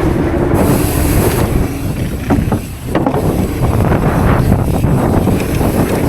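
Heavy wind buffeting on a chest-mounted camera's microphone: a loud, constant low rumble that dips briefly a little before the middle.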